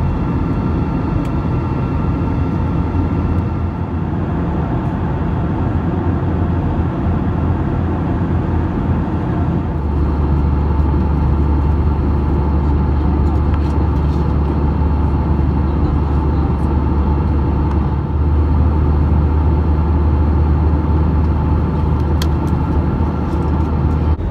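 Steady cabin noise of an Airbus A321 airliner in flight: a loud, even drone of engines and airflow with a few faint steady tones over it. The low part of the drone shifts slightly about ten seconds in.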